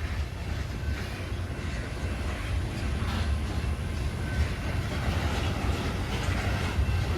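Loaded coal hopper cars of a long freight train rolling past: a steady rumble, with wheels knocking over rail joints a few times and brief faint wheel squeals.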